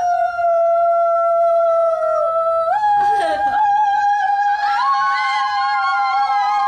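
High, long-held sung notes in a woman's voice: one note held for almost three seconds, then a step up to a slightly higher note held to the end, with a second, higher voice joining about halfway through.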